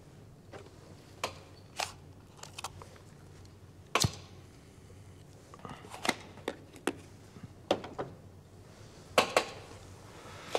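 A scattered series of small, sharp clicks and taps from a cigarette being handled and put to the lips. The loudest tap comes about four seconds in, and a quick pair of clicks follows near the end.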